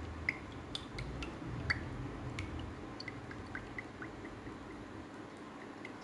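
Cooking oil poured in a thin stream from a bottle into a wok, pooling with a scatter of small liquid plinks and drips that thin out toward the end.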